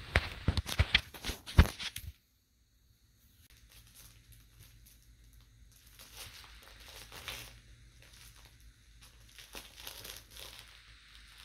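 A cat wrestling and kicking a plush catnip-filled carrot kicker toy: soft irregular rustling and crinkling of the fabric toy as it is clutched and kicked. The first two seconds hold a run of loud sharp clicks and knocks that cut off abruptly.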